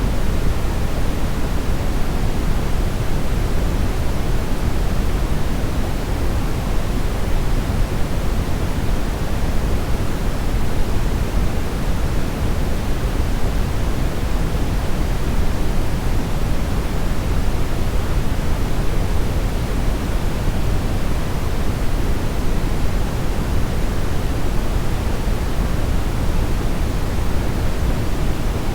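Steady synthetic brownish noise: an even, unchanging rush weighted toward the low end, with no tones or events.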